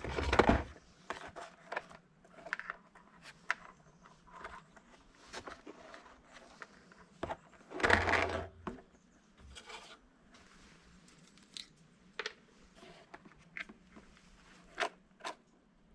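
Scattered small clicks, taps and brief scrapes of hands fitting a bent wire linkage onto a servo and an RC boat rudder, with two louder rustling handling noises, one just after the start and one about eight seconds in.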